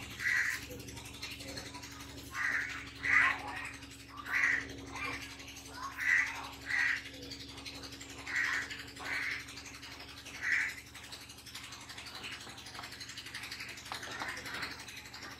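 Whiteboard marker squeaking on the board as words are written: about a dozen short squeaks, often in pairs, then only fainter scratching strokes for the last few seconds.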